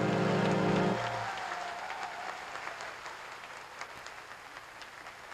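A song's held final chord cuts off about a second in, and a large audience applauds, the applause slowly fading.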